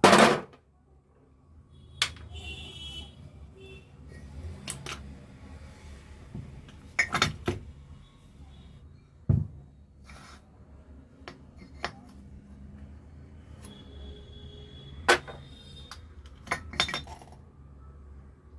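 Metal parts and hand tools clinking and knocking as an auto-rickshaw starter motor is taken apart, with scattered sharp clinks, the loudest right at the start.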